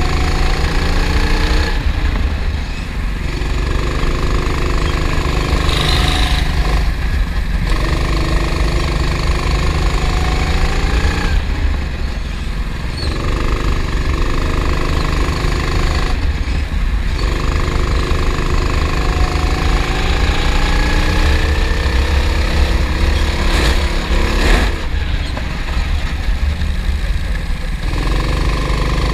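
Kart engine heard from on board, running hard and climbing steadily in revs along each straight, then dropping off briefly as the driver lifts for the corners, about five times.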